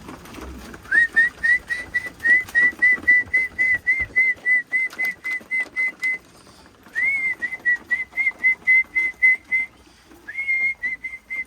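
Pigeon keeper's recall whistle: a person whistling short, rapidly repeated notes at one pitch, about four a second, in three runs with brief pauses, the feeding signal that calls racing pigeons into the loft.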